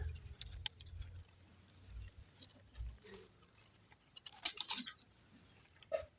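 Faint scattered rustles and small clicks, with a louder rustle about four and a half seconds in.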